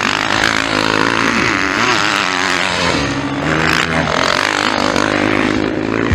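Motocross bike engines revving up and down as riders race around the track, pitch rising and falling with the throttle.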